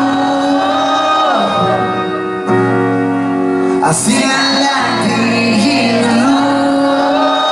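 Live rock band playing held chords under sung vocals, the melody gliding and holding notes throughout.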